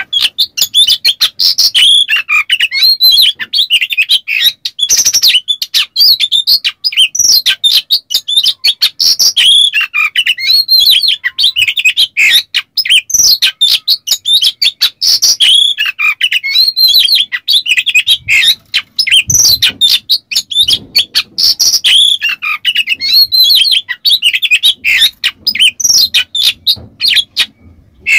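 Oriental magpie-robin (kacer) singing loudly and without pause: a fast run of whistled, sweeping notes mixed with rough, rasping rattles, the harsh 'besetan' that kacer keepers prize, delivered in the frenzied 'konslet' style.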